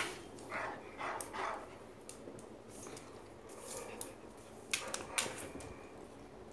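A dog making a couple of short sounds about half a second and a second in, then quieter, with a few sharp clicks near five seconds in.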